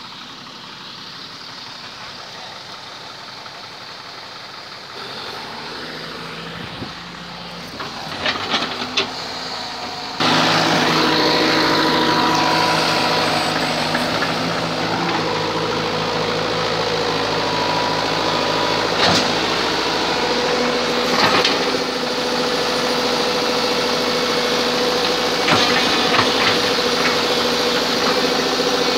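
Hitachi crawler excavator's diesel engine running, quieter at first and then stepping up abruptly about ten seconds in to a louder, steady drone as the machine digs. A few sharp knocks stand out over the engine.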